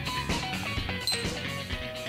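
Background music: a guitar-led instrumental track. About halfway through, a short high beep, as when a digital kitchen timer is started.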